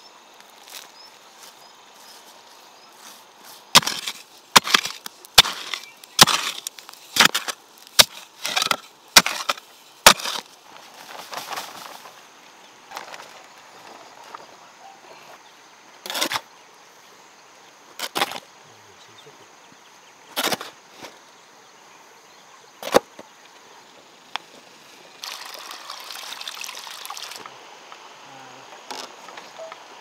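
Sharp knocks from hand tools at work: a quick run of about nine strikes, then single knocks every two or three seconds, and a couple of seconds of scraping near the end.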